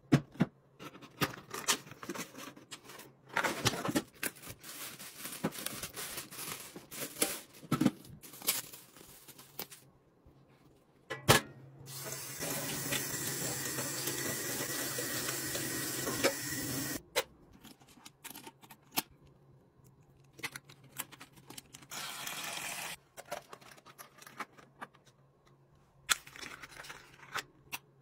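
Cardboard box and packaging being opened and handled, with scattered rustles and knocks. Then a kitchen tap runs steadily into a stainless-steel sink for about five seconds while the fountain's steel parts are rinsed, and runs again briefly later. A few plastic clicks come near the end as parts are fitted.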